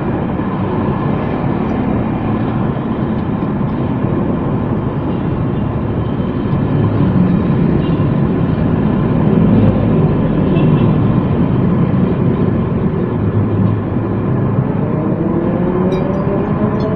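Steady road traffic noise from vehicles passing on the street, with one engine's pitch rising over the last few seconds as it pulls away.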